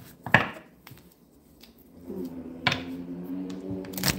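A single sharp tap about a third of a second in, then a woman humming one steady low note for about two seconds near the end.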